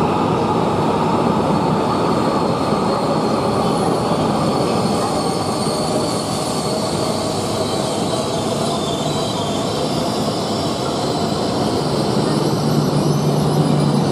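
Shinkansen bullet train running past on the tracks: a steady loud rush of rolling noise with faint high whining tones. The noise eases slightly midway, and a low steady hum comes in about twelve seconds in.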